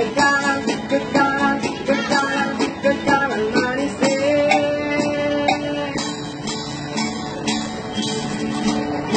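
Acoustic guitar strummed in a steady rhythm, with a held melody note from about four to six seconds in.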